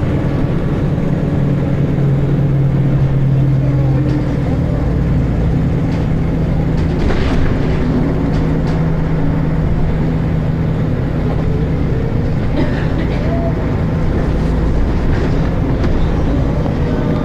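Volvo B10BLE single-deck bus's diesel engine running under way, heard from inside the bus, with a steady loud engine drone and thrash and some body rattles.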